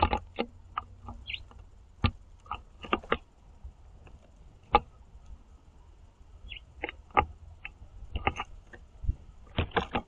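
House finches and house sparrows pecking and cracking seeds on a platform feeder: irregular sharp taps and clicks of beaks on the seed tray, with a few short high chirps.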